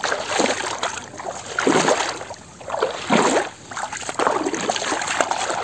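Shallow muddy water sloshing and splashing, about five splashes roughly a second apart.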